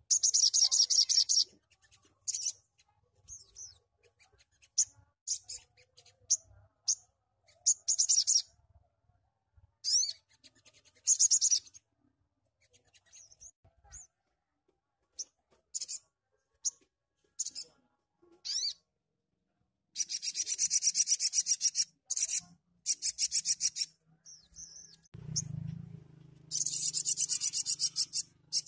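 Olive-backed sunbird singing its rapid-fire "tembakan" song: very high, fast buzzing trills of one to two seconds each, several times, with short sharp chirps between them. A brief low rustle comes about three-quarters of the way through.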